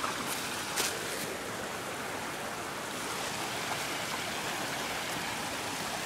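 Steady rushing of a stream running over rocks, with a few faint knocks in the first second or so.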